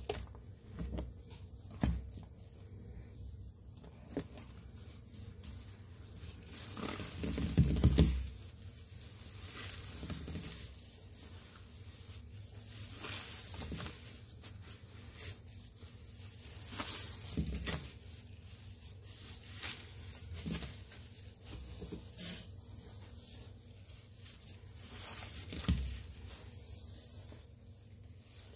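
Rubber-gloved hands squeezing and kneading a sponge in thick foamy cleaning paste, making irregular wet squishing and squelching with a fizzy crackle of foam. The loudest squeeze comes about eight seconds in.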